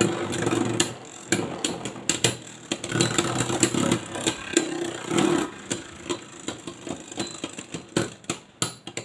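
Two Beyblade Burst spinning tops whirring in a plastic stadium, clacking again and again as they knock into each other. The whirring gets quieter in the second half.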